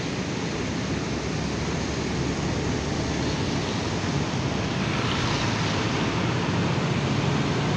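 Steady rumble of diesel bus engines and traffic at a bus terminal exit, growing slightly louder toward the end as buses come through.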